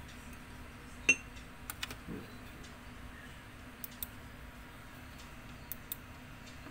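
Light clinks and taps of painting supplies handled on a table, a ceramic water mug and plastic paint jars. A single ringing clink about a second in is the loudest, then a few softer ticks and taps around two, four and six seconds.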